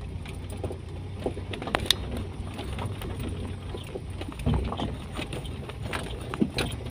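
Cabin noise of a Toyota Kijang driving over a rough dirt track: a steady low engine hum with scattered rattles and knocks from the bumpy ground, and one heavier knock about halfway through.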